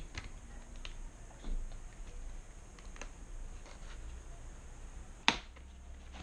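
Cardboard box being opened by hand, its lid tabs worked loose: small scattered clicks and rustles of cardboard, with one sharp snap about five seconds in.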